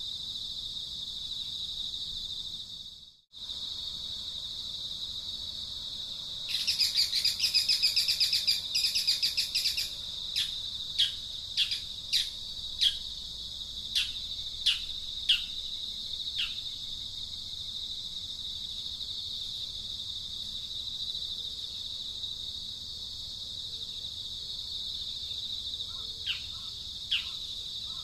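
Outdoor insect drone, steady and high-pitched, under bird calls. The calls come as a loud rapid trill about a quarter of the way in, then a run of short, sharp falling notes about one and a half a second, with a few more near the end. The drone cuts out briefly about three seconds in.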